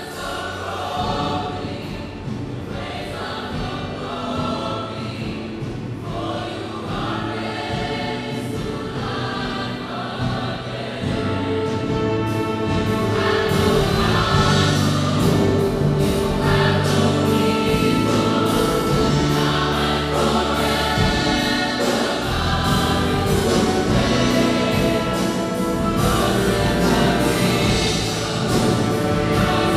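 A choir singing gospel-style music with instrumental accompaniment, growing fuller and louder about twelve seconds in.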